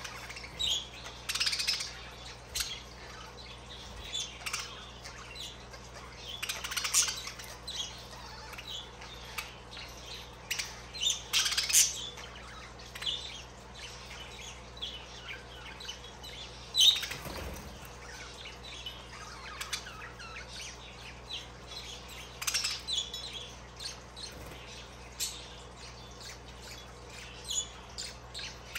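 Budgerigars chattering: a steady string of short, high chirps and squawks, with louder clusters now and then and one brief louder burst partway through.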